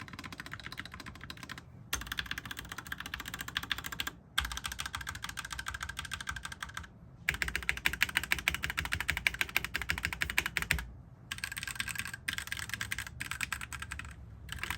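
Fast typing on a Tecware B68+ mechanical keyboard, which has silicone dampening in its bottom case and under the spacebar: a dense run of key clicks and clacks. It comes in several stretches, broken by short silent gaps about every three seconds.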